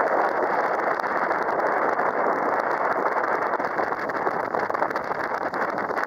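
Small river cruise boat underway: a steady rush of engine and water noise mixed with wind on the microphone.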